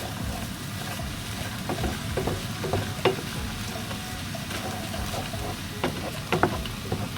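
Vegetables and freshly added corn sizzling in a frying pan while being stirred, with a spoon knocking and scraping against the pan now and then.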